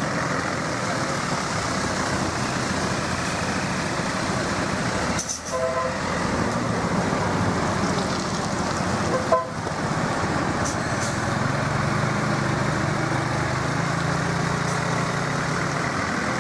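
Buses running past on a road: a dense, steady wash of engine and traffic noise with horn toots. The sound dips briefly twice, about five and nine seconds in, and a bus engine's low hum grows stronger near the end.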